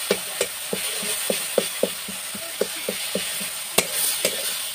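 Metal spatula knocking and scraping against a steel kadhai while food is stirred as it fries, a run of sharp clicks about two a second over a low sizzle.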